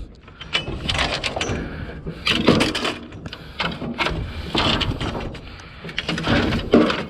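Irregular scraping and knocking of objects being shifted and dragged about to clear working room, several short scrapes with a few sharper knocks.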